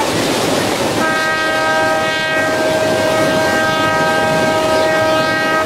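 Diesel locomotive's horn sounding one long, steady blast of several tones together, starting about a second in, over the steady noise of surf breaking.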